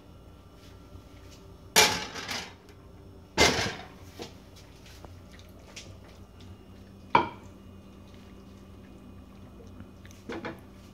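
Cookware clattering: a metal pan knocked and scraped against a glass serving dish as curry is emptied out, with two loud clatters about two and three and a half seconds in. A sharp knock follows midway, then light taps as a wooden spatula works in the glass dish.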